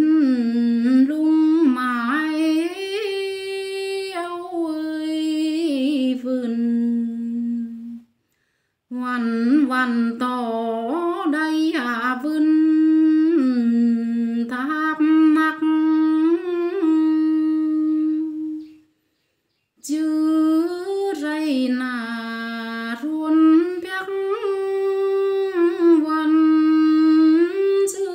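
A woman singing a song solo in long, gliding phrases, with two short silences between phrases.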